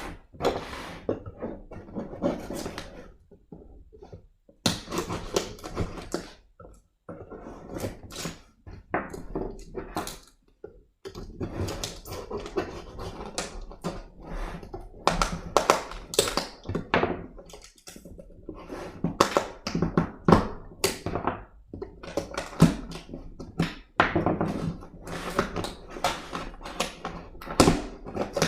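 Hands opening the cardboard packaging of a laptop box: an irregular string of thunks, taps and scraping as the box and its inner packaging are handled and pulled open.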